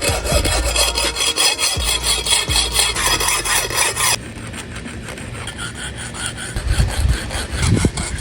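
Hand saw cutting through wood in quick back-and-forth strokes. About four seconds in the sound drops abruptly to softer sawing, with a couple of dull knocks near the end.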